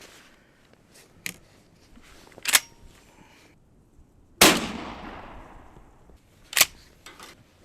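A single shot from a .410 pump shotgun about halfway through, its report trailing off in a rolling echo over a second or so. A few shorter, sharp clacks come before and after the shot.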